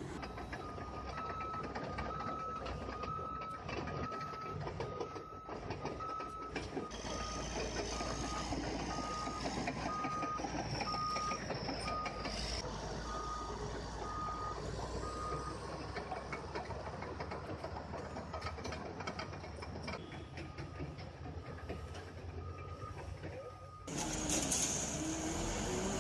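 Heavy machine's reversing alarm beeping in a steady single-pitched pattern, about one beep a second, over running engine noise. The beeping stops for several seconds midway and then resumes. The sound changes abruptly near the end.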